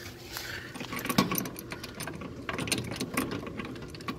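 Metal tools clinking and clanking as an adjustable wrench is handled and set onto an air conditioner's brass service valve: a run of short irregular clicks and knocks, the sharpest clank about a second in.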